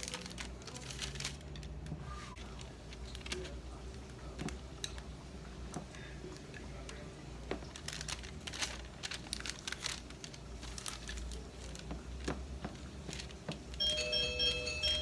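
A fork's tines pressing and tapping against a ceramic plate as pastry turnover edges are crimped, scattered light clicks and scrapes over a low steady hum. A bright ringing tone comes in near the end.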